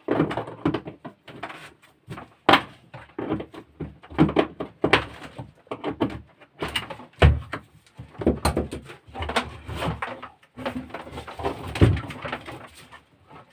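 Irregular knocks, clicks and clatter of hard parts being handled and set down, with a couple of heavier thumps about seven and twelve seconds in.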